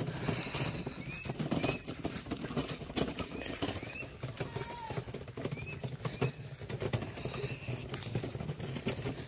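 Footsteps walking across grass and dry straw, a steady series of soft thuds and crunches, with a short rising chirp high up every second or two.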